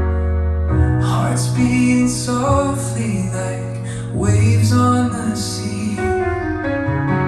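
A song with singing over long-held bass notes, played back on a TAGA Harmony TAV-607 home-theatre speaker set with a Yamaha NS-SW100 subwoofer.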